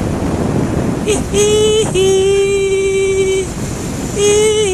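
A vehicle horn, most likely a motorcycle's, honked three times, a short blast, a long one and another short one, each a single steady note, over wind rushing across the microphone.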